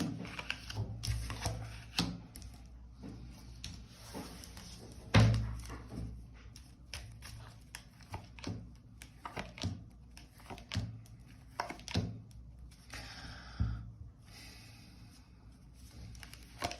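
Tarot cards being handled on a table: a run of light taps and slaps as cards are shuffled and laid out, with one louder thump about five seconds in and a brief rustling shuffle near the end.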